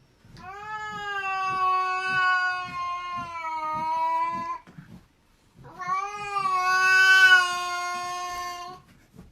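A cat giving two long, drawn-out yowls, the first about four seconds and the second about three, with a short break between them.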